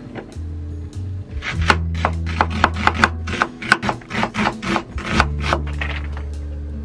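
Chef's knife cutting an onion on a wooden cutting board: a quick run of sharp knife strokes, about four a second, from about a second in until near the end, over background music with a steady bass.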